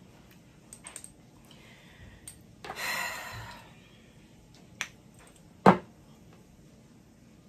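A single spritz from a perfume bottle's pump sprayer: a hiss about a second long near the middle, with small clicks of the bottle being handled around it. A sharp knock a couple of seconds later is the loudest sound.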